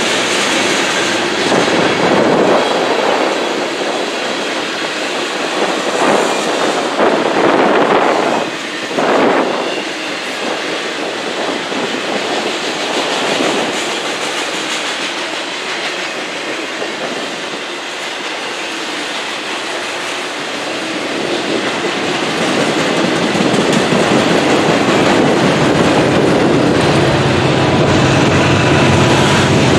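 Freight cars of a Norfolk Southern freight train rolling steadily past at close range, their steel wheels running over the rail. Near the end a low engine drone builds as a mid-train diesel locomotive, an SD70ACe distributed-power unit, approaches.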